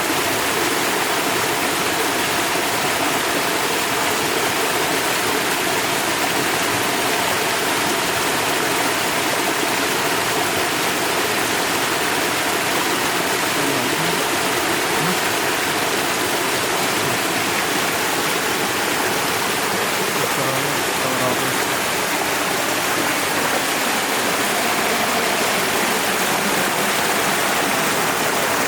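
A river's water rushing steadily as a constant, even roar of flowing water.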